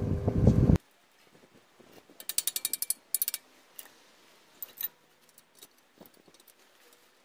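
Stick-welding arc crackling loudly for under a second, then cut off abruptly. This is followed by faint handling of a washing-machine motor on a steel frame, with a run of rapid ratchet-like clicks about two seconds in and a few single clicks later.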